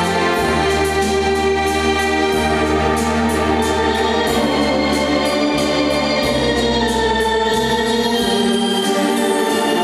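Blackpool Tower Ballroom's Wurlitzer theatre organ playing dance music: sustained chords over low bass notes that change every couple of seconds.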